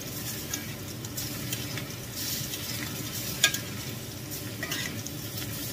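Marinated wild boar meat sizzling and crackling in melted margarine in a cast iron skillet, with a spoon scraping and basting in the pan. One sharp tap stands out about three and a half seconds in.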